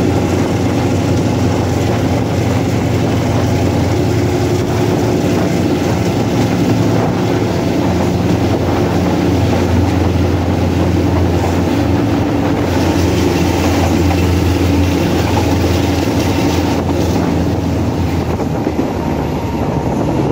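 Alsthom diesel locomotive No. 4218's engine working hard under heavy throttle, heard from beside the cab as a loud, steady drone.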